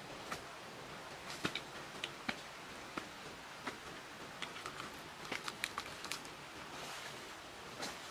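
Footsteps on dry leaf litter and twigs, heard as light, irregular clicks and rustles over a steady hiss.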